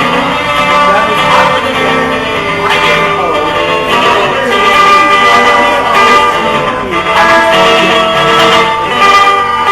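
Guitar played live as a solo instrumental passage, picked and strummed notes ringing on steadily, with a few notes bending in pitch.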